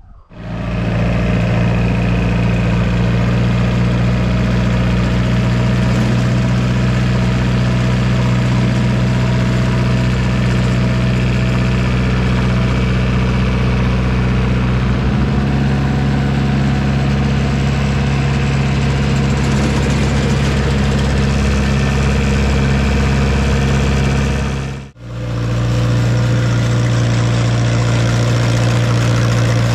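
Compact diesel tractor's engine running steadily under way, heard close from the driver's seat. The engine note steps up slightly about halfway through. The sound cuts out for a moment near 25 seconds, then the engine goes on.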